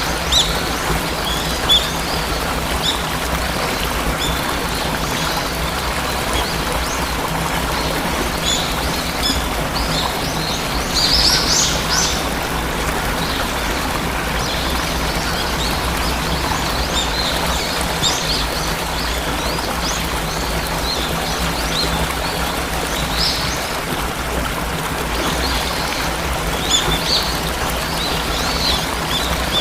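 Steady rush of a waterfall with birds chirping over it in short, scattered calls, and a louder flurry of chirps about eleven seconds in.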